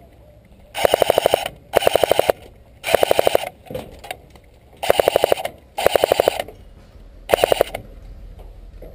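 Airsoft rifle firing six short full-auto bursts of about a dozen shots a second, each burst under a second long, plus a fainter short burst about four seconds in.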